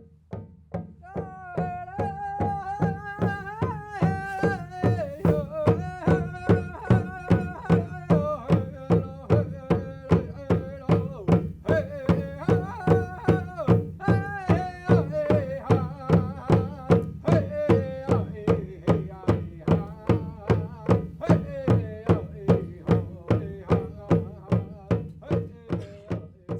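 A drum beaten steadily at about two strokes a second, with a single voice singing long, wavering notes over it.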